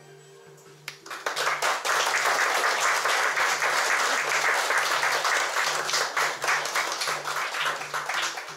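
An audience applauding. The clapping starts abruptly about a second in, holds steady, and dies away near the end, over faint instrumental music.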